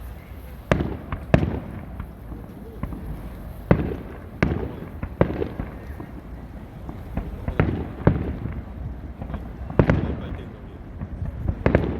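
Aerial fireworks bursting overhead: a series of sharp bangs at irregular intervals, about nine in all, each trailing off in a short rumble.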